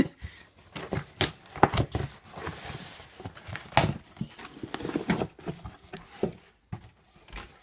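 Cardboard shipping box being opened by hand: irregular knocks, scrapes and rustling of cardboard and packing tape.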